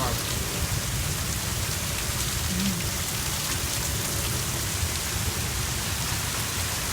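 Heavy rain falling steadily, an even hiss of rain on surfaces with no letup.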